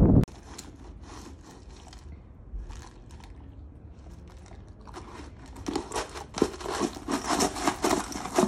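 A puppy crunching and biting ice cubes out of a stainless steel bowl, with scattered crisp crunches and scrapes that grow louder and busier in the second half. A burst of wind noise cuts off in the first instant.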